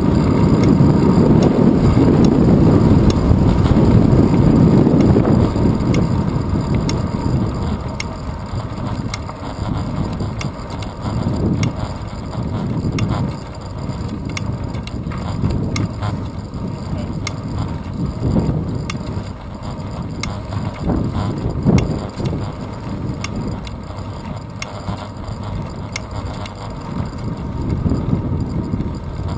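Wind buffeting a handlebar-mounted camera's microphone, mixed with the rumble of a bicycle rolling on asphalt. It is loudest for the first several seconds, then eases and rises and falls, with occasional short clicks and knocks from the road surface.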